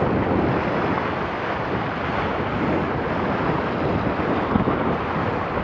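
Steady wind noise buffeting the microphone, mixed with water rushing along the hull of a Laser 2 dinghy planing at about eight knots.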